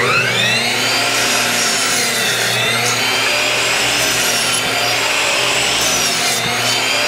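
Electric miter saw running and cutting wood: the motor whines up to speed at the start, and its pitch dips twice as the blade bites into the boards.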